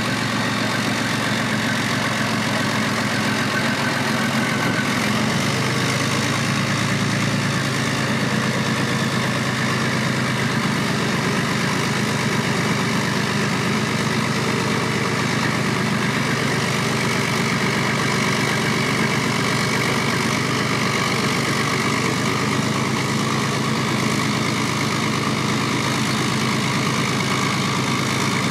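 Leguan bridge-laying tank's V12 diesel engine idling with a steady low hum.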